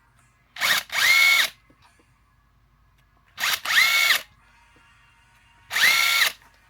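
Cordless power tool spinning bolts out of a Ford Barra engine during teardown: three short runs of motor whine. Each run has a brief trigger blip, then spins up, holds a steady pitch for about half a second, and winds down.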